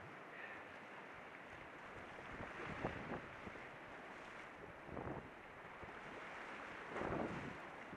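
Rushing river water in brown whitewater rapids, heard from an inflatable kayak, with three louder splashes about three, five and seven seconds in, the last the loudest.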